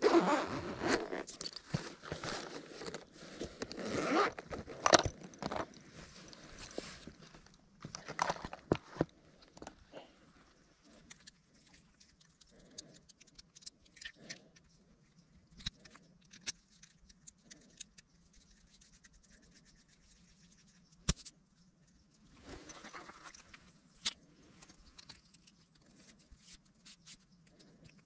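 Small hard gear being handled: rustling and rattling for the first several seconds, then scattered light clicks, one sharper click about 21 s in, and another short stretch of rustling a little after that.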